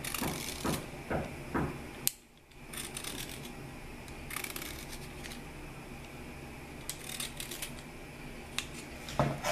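Vegetable peeler shaving thin strips off a black radish, skin on: short scraping strokes, several in the first two seconds and a few more scattered later.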